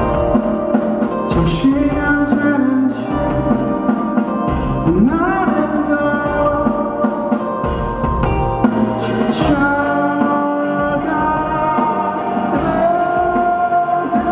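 Live rock band playing at full volume: electric guitar over drums and bass, with a sung or sliding melodic line on top. The drums and low end come in right at the start after a sparse, ambient passage.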